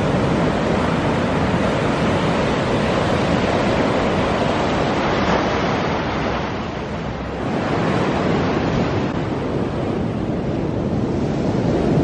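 Ocean surf breaking and washing up the beach, with wind rumbling on the microphone. The wash eases for a moment about halfway through, then builds again as the next wave comes in.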